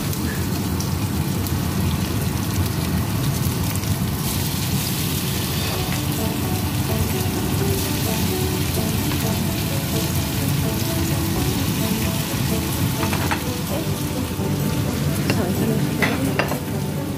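Prawn satay skewers sizzling in oil in a frying pan: a steady frying hiss, with a few light clicks from tongs turning the skewers in the later part.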